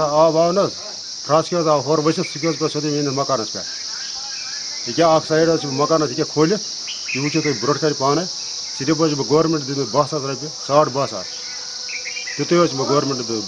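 Steady high chirring of crickets, going on unbroken beneath a man talking.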